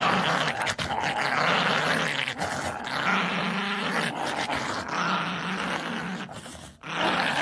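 Puppy growling in play while biting and tugging at a toy held in a hand, a steady low growl that breaks off briefly near the end.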